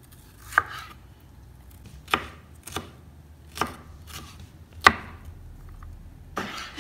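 Chef's knife dicing red bell pepper on a plastic cutting board: separate sharp knocks of the blade hitting the board, about one a second, the loudest near five seconds in.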